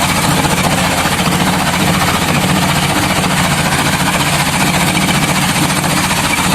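Small boat engine running steadily with an even, rapid chugging.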